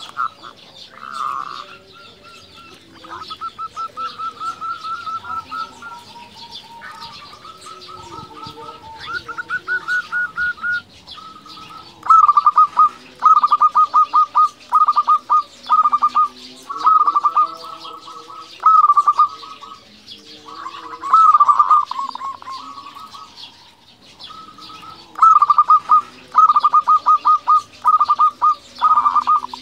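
Zebra dove (perkutut) cooing: repeated phrases of fast, trilled staccato coos, the loudest being runs of short rapid notes from about twelve seconds in, separated by brief pauses. Faint chirping of small birds runs underneath.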